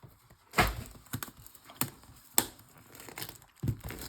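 Foil trading-card packs being handled, crinkling with several sharp crackles and clicks.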